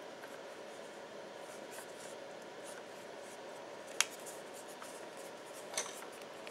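Faint rubbing over a steady room hiss, with one sharp click about four seconds in and a short run of clicks near the end.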